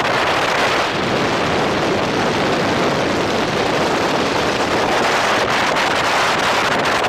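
Steady wind noise rushing over the camera's microphone as a skydiver flies under an open parachute canopy.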